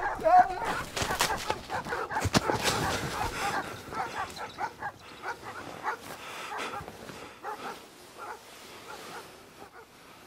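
Frantic cries and shouts, loud and dense at first, then fading away over several seconds.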